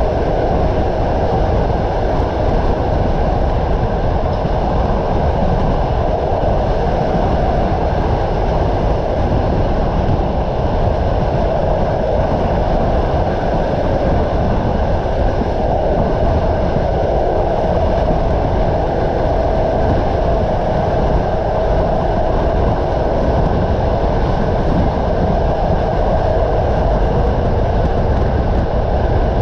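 Passenger train running along the track, heard from inside the carriage at the window: a steady, loud rumble of wheels and carriage with no distinct clicks or squeals.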